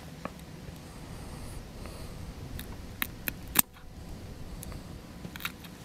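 Sixth Sense titanium scissors snipping the hard plastic weed guard of a bass jig: a few sharp clicks, the loudest about three and a half seconds in.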